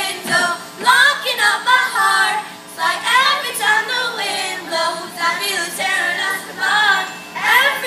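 Children's glee club singing a pop song as a group through the stage's sound system.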